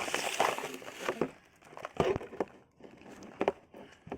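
Plastic blind-box packaging crinkling as it is handled, densest in the first second, followed by a few separate sharp taps and clicks.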